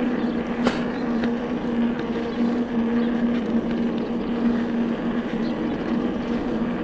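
Electric mountain bike's motor humming at a steady pitch under pedal assist on a climb, over the rush of tyres on a dirt path. A single sharp click sounds under a second in.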